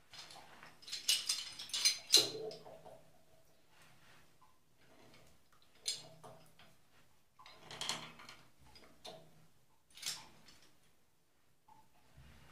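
Intermittent metallic clinks and clatter of tools and tap parts being handled during a faucet repair, busiest about a second or two in, with further short bouts later.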